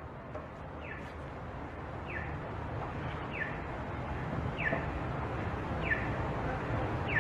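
A short, high, falling chirp repeats at an even pace, six times about a second and a quarter apart, over a low steady street rumble.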